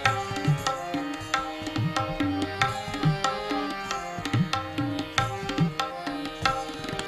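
Instrumental break in a baul song: a harmonium plays a sustained reedy melody over steady hand-drum strokes, without singing.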